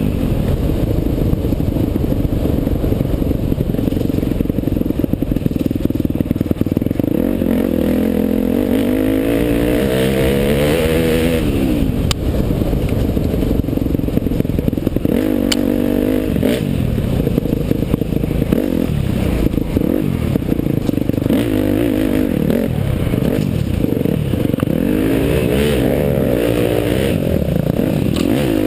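Off-road dirt bike engine heard up close from on board, revving up and falling off again and again as the rider works the throttle and shifts along a tight trail. Rattles and scrapes from the bike over rough ground and brush, with a couple of sharp knocks partway through.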